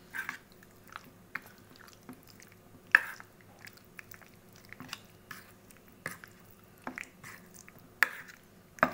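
Metal spoon stirring chicken pieces through a thick yogurt-and-chilli marinade in a steel bowl: soft wet squelching, with sharp clinks of the spoon against the bowl, the loudest about three seconds in and two more near the end.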